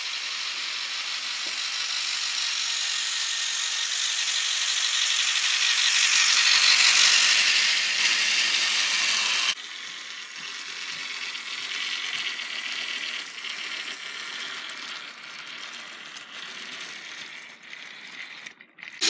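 Battery-powered toy trains running on plastic track: a whirring motor and gears with a fast clicking rattle. It grows louder as the first train approaches, cuts off abruptly about nine and a half seconds in, then carries on more quietly with the second train.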